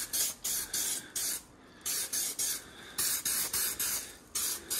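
Aerosol can of fade-out blending thinner sprayed in a string of quick, short hissing bursts, a fraction of a second each, with a brief pause about a second and a half in. The thinner is being misted along the edge of fresh clear lacquer to melt that edge into the old paint.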